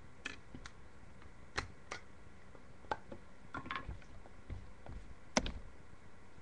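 Spoon scooping fine-cut tobacco: a dozen or so irregular small clicks and taps of the spoon against the container, with faint scraping between them. The loudest tap comes near the end.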